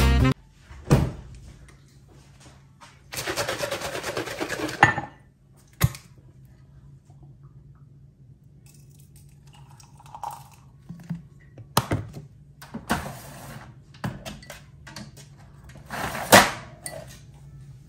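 Clunks and clicks of a ceramic mug, a creamer bottle and plastic K-cup pods being handled at a Keurig coffee maker, the loudest knock near the end. A short rushing sound runs for about two seconds, beginning about three seconds in.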